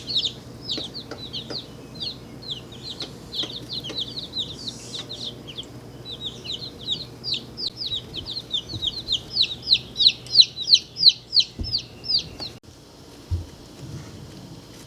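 A brood of day-old chicks peeping: a dense, rapid run of short, high, falling peeps, loudest around ten seconds in. The peeping stops abruptly near the end, leaving only a few faint peeps.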